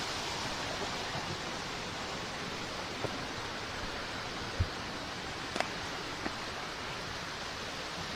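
Steady rushing of water from the waterfall and its rocky stream, with a few short knocks near the middle.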